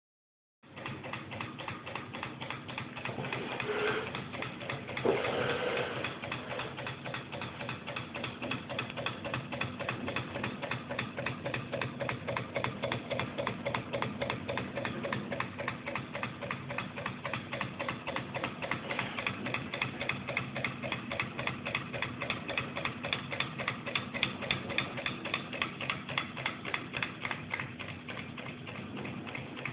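Homemade candle-heated pop-can Stirling engine with a balloon diaphragm running, its mechanism clicking in a rapid, even rhythm with each revolution. A louder knock comes about five seconds in.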